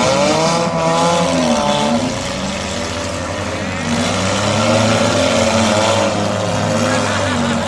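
Several demolition derby cars' engines revving, their pitch rising and falling as they rev up and back off, with more than one engine running at once.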